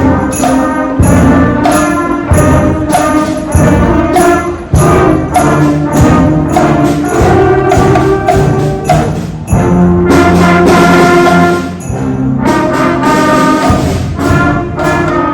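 Middle school band playing, brass loudest, with percussion strokes about twice a second.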